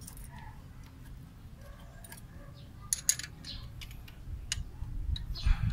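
Light metallic clicks and taps of hand tools on the valve gear of a Toyota 4K engine as a valve clearance is set with a feeler gauge, with two sharper clicks about three seconds in, over a low rumble.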